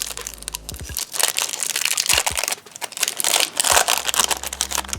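Plastic-foil Topps Chrome trading-card pack wrapper crinkling and crackling as it is torn open by hand, with a short pause about halfway through.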